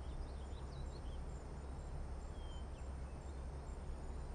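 Quiet outdoor ambience: a steady low hum and background hiss, with a few faint, short high chirps scattered through it.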